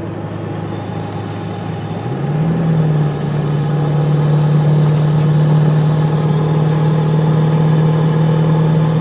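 1997 Ford 7.3 L Power Stroke turbo-diesel V8 pulling hard, straight-piped through a 4-inch exhaust. About two seconds in, the engine note climbs and gets louder, then holds. A high turbo whistle, loud because of the open intake, rises soon after and then holds steady.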